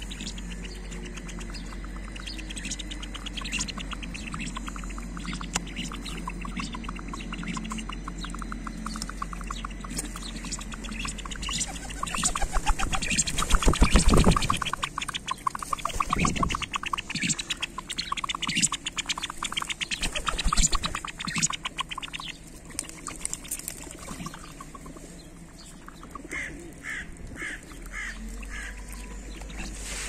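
Mandarin ducks calling with short notes, ending in a quick run of four short calls. Under them are steady clicking and crackling, with a louder burst of rustling and clicks about halfway through.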